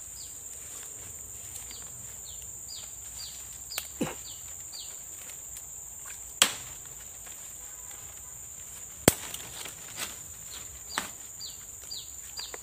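Steady high-pitched insect drone with many short, falling chirps over it. Two sharp, loud clicks come about six and nine seconds in, with a few fainter ones after.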